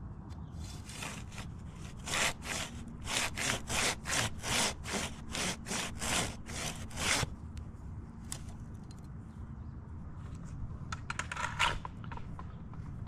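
Curved hand pruning saw cutting into a dead birch trunk with rapid back-and-forth strokes, about two a second, for some seven seconds, then stopping. A few short rasps of the saw come about eleven seconds in.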